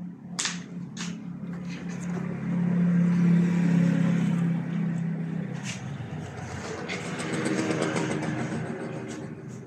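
A car engine running, its steady hum swelling louder a few seconds in and again near the end, with a few sharp clicks and knocks over it.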